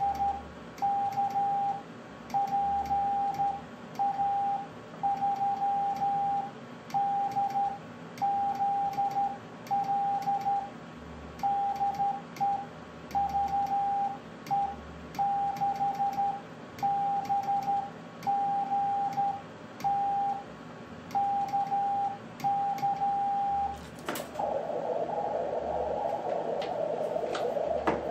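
Hand-keyed Morse code (CW) on a ham radio station: a steady beep switched on and off in dots and dashes, with faint key clicks. About 24 seconds in the keying stops and the receiver's filtered hiss takes over.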